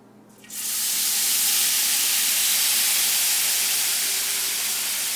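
Tomato sauce poured into a small pan of rice fried in very hot oil: a sudden loud hiss of steam and sizzling starts about half a second in and carries on steadily.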